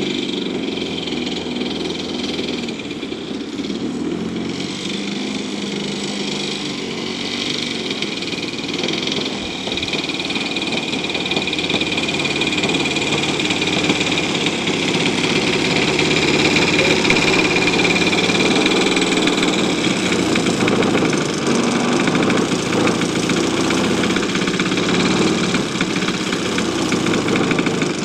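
3W-85 two-stroke gasoline engine of a large RC P-51 Mustang model running steadily during a ground test, growing louder about halfway through.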